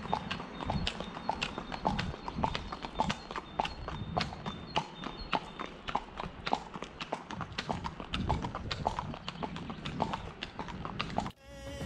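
Hooves of two horses, a KWPN gelding and the horse ahead of it, walking on an asphalt street: a steady, brisk clip-clop of hoof strikes. The hooves cut off suddenly near the end.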